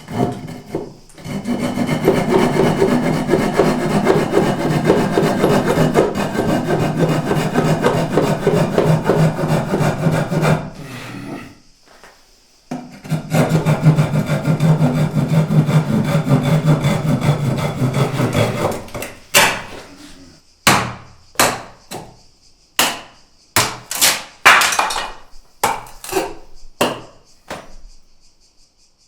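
Handsaw cutting through wood: a long run of quick, steady strokes, a break of about two seconds, a second quick run, then about a dozen slower, separate strokes near the end.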